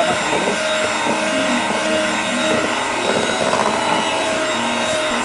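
Electric hand mixer running steadily, its beaters whipping a thick cream mixture in a metal bowl.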